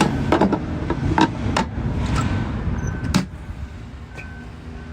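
A few sharp knocks over a low rumble, the loudest about three seconds in, after which the rumble drops. A faint, short, repeated beep is heard in the second half.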